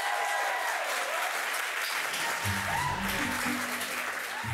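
Studio audience applauding, giving way about halfway through to background music with a steady bass line.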